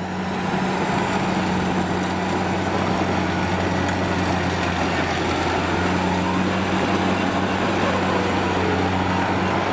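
Kubota DC70 combine harvester running under load while cutting rice. Its four-cylinder V2403 diesel holds a steady drone, with the constant whirring noise of the cutting and threshing gear over it.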